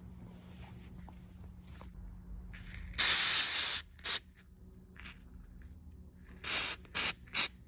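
Aerosol spray paint can hissing in bursts: one long spray of nearly a second about three seconds in, a brief one just after, then three or four short spurts near the end, as another coat goes onto a small RC crawler body.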